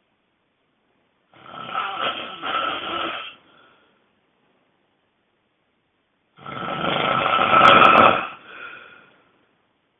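A person snoring extremely loudly: two long, rough snores about five seconds apart, the second one louder, with silence between them.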